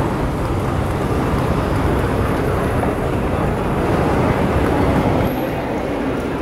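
Steady rumbling noise of an airport moving walkway being ridden. About five seconds in, the deep rumble drops away and a lighter hall noise remains.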